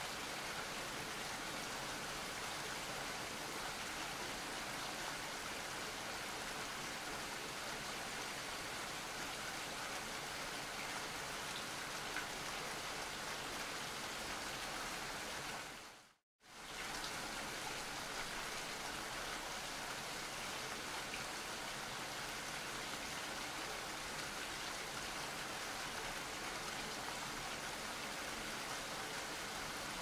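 Steady rain falling, an even hiss of drops. About halfway through, the sound fades out to silence for a moment and comes straight back, as at the splice of a looped recording.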